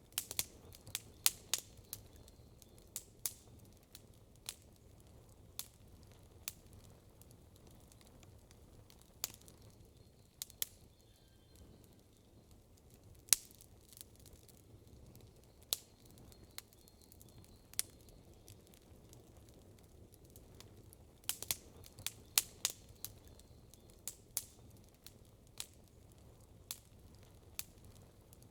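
Campfire crackling: burning wood giving off sharp, irregular pops and snaps, bunched in quick runs near the start and again about three-quarters of the way through, over a faint steady low background.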